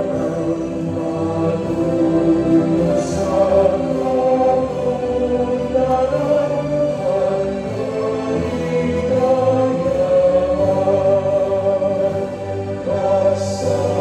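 Choral music: a choir singing long, held notes.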